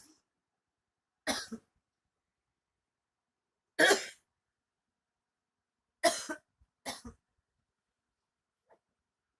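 A person coughing while dozing sitting up: four separate coughs about two seconds apart, the loudest about four seconds in. It is a persistent night-time cough, eased by sleeping upright because lying flat leaves the chest tight.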